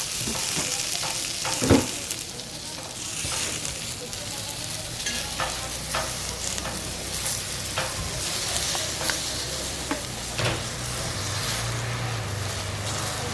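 Pancakes frying in oil on a griddle, with a steady sizzle. Utensils scrape and click against the pan, with one loud knock a little under two seconds in.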